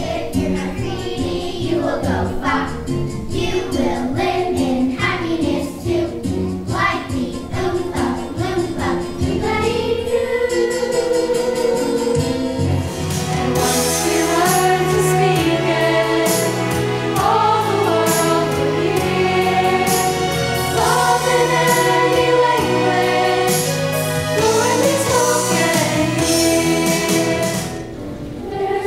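Music: a song with a steady beat, then from about ten seconds in a choir singing in parts over a bass accompaniment, with a brief drop in loudness near the end.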